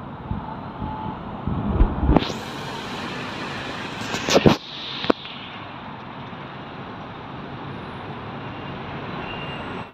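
City street traffic at an intersection: a steady hum of cars and scooters, with a car passing close and louder about two seconds in. A few sharp knocks come around the middle.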